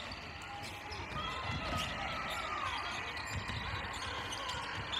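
Netball court sounds: players' trainers thudding and squeaking on the wooden floor, with faint players' calls.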